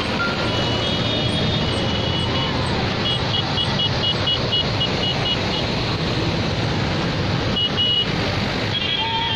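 Tractor engines of a passing convoy running steadily on a highway. About three seconds in, a string of short high beeps at roughly three a second lasts a couple of seconds, with a brief pair of beeps near the end.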